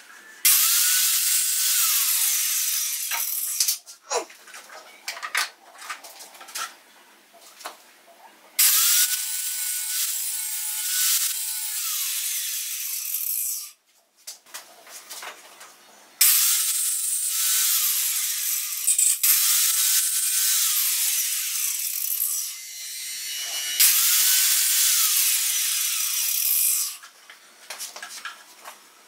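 Angle grinder cutting a nut off a steel plate held in a vise, run in four bursts of a few seconds each. Its motor whine rises as it spins up and falls away as it winds down between cuts, with clicks of handling in the pauses.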